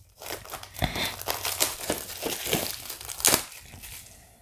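Plastic shrink-wrap crinkling and tearing as it is peeled off a Blu-ray steelbook case, a run of irregular crackles with the loudest just past three seconds in, fading off near the end.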